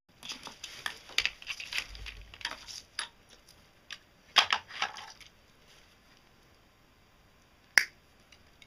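Insulated wire rustling and clicking against the rest of its coil as it is pulled and unwound, in two bursts of crackly handling noise, then one sharp click near the end.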